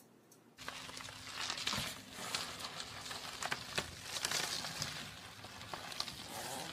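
Plastic bubble wrap crinkling and crackling as a small dog wriggles inside it, with many sharp crackles throughout; it starts suddenly about half a second in.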